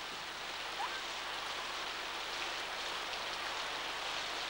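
Steady hiss of falling rain, with one faint short rising call about a second in.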